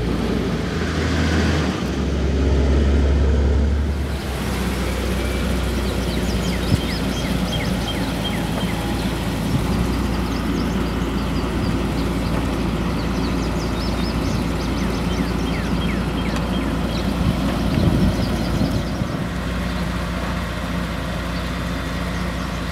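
Mercedes SL65 AMG's twin-turbo V12 running at idle: a steady low drone, a little louder in the first few seconds.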